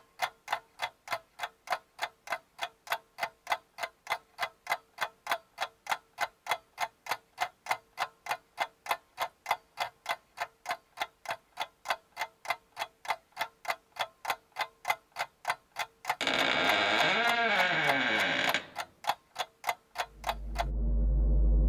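Clock ticking steadily, about three ticks a second. About 16 s in it is drowned for two seconds by a loud noise that sweeps up and down in pitch, and near the end a deep, low musical rumble swells in.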